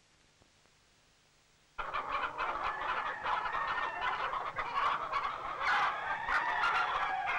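A dense chorus of many overlapping gobbling, fowl-like calls. It starts suddenly about two seconds in, after near silence.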